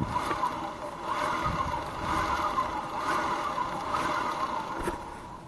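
Honda PCX scooter's clutch and drivetrain running, a mechanical noise that swells and fades about once a second, with a couple of low thumps and a click near the end.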